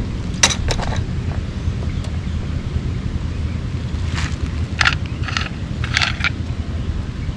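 Plastic toy vehicles being handled and set down on gravel: a handful of light clicks and scrapes, most of them between about four and six seconds in, over a steady low background rumble.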